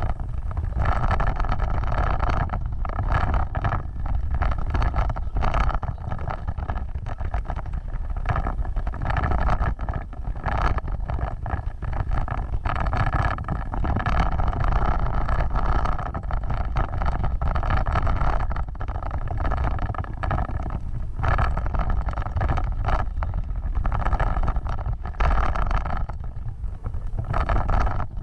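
Off-road vehicle driving over rough ground: the engine runs steadily under a heavy low rumble, with frequent knocks and jolts from the body and suspension.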